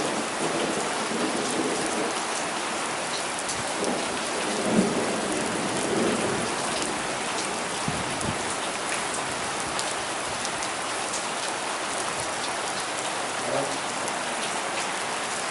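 Torrential rain pouring down steadily in a severe thunderstorm, heavy enough to cause flash flooding, with a low rumble of thunder about five seconds in.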